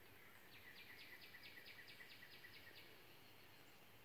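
Near silence, with a small bird faintly calling a series of about ten quick, evenly spaced chirps, roughly four a second, lasting about two seconds.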